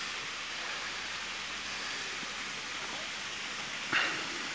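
Steady even hiss of outdoor background noise, with a short louder sound about four seconds in.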